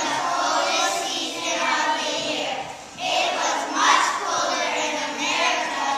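A group of young children singing together in unison, with a short break between phrases just before halfway.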